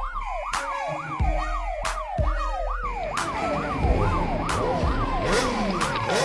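Music track opening with a siren sound effect: a rapid rising-and-falling wail, about three sweeps a second, over a beat of regular drum hits and deep bass.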